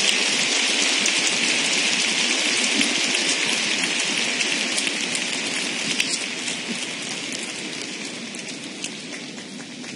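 Arena audience applauding, a dense crackle of clapping that fades steadily over the last several seconds.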